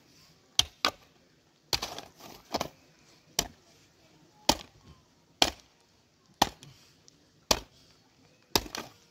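A hand tool chopping, with sharp blows coming irregularly at first and then settling into about one a second.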